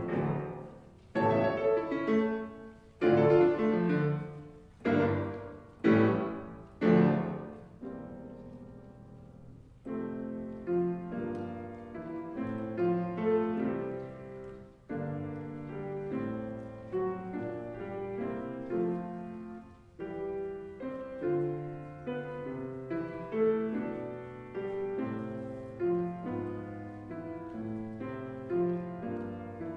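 Grand piano played solo: loud chords struck about once a second for the first eight seconds, each left to ring and die away, then after a short lull a softer, flowing passage of many notes.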